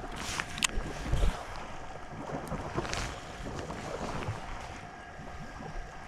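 Wind buffeting the microphone over water noise, with a few sharp clicks about half a second and three seconds in.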